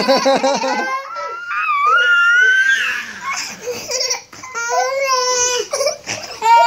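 Young children laughing and squealing while play-wrestling: a quick burst of laughter at the start, then long high-pitched squeals and more laughing.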